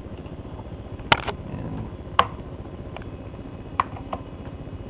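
Four sharp mouse-button clicks, two of them close together near the end, over the steady low hum of the running Macintosh IIci.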